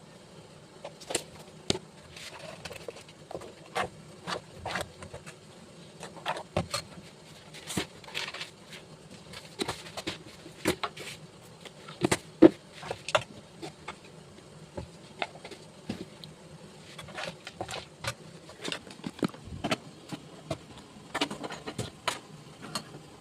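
Scattered light clicks and knocks, irregular and a few a second, over a steady low hum; one sharper knock about halfway through stands out.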